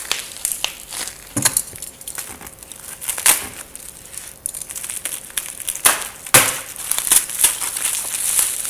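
Plastic wrapping crinkling and crackling as a bundle of trading cards is cut open and unwrapped by hand, with a few sharp louder crackles.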